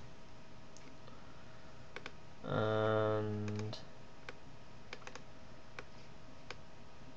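Scattered single clicks of a computer mouse and keyboard, about eight spread over a few seconds, as a node is created and edited in the software. A faint steady hum lies underneath.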